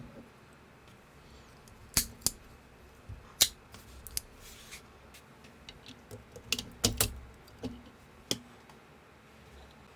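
Plastic LEGO-compatible bricks being handled and snapped together: a string of sharp irregular clicks, several close together around the middle, with a brief soft rustle of loose pieces.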